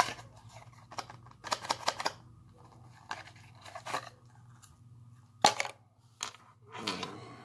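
Paper instruction leaflet rustling and crinkling in short bursts as it is handled and unfolded, with a single sharp knock about five and a half seconds in.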